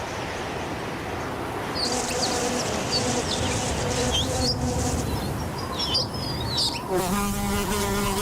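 Steady rushing noise with short high bird chirps in the middle. About seven seconds in, a steady insect-like buzz starts close by.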